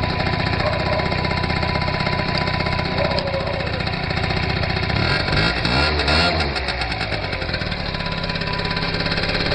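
Gilera Runner scooter engine running at idle, revved up and back down a couple of times about halfway through, then idling again.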